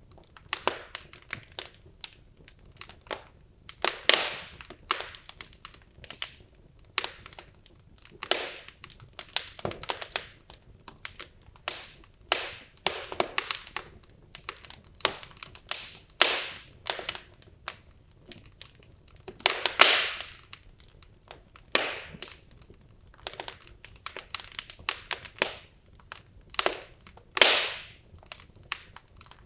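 Wood logs burning in a fireplace, crackling and popping at irregular intervals, with a few louder pops among many small snaps.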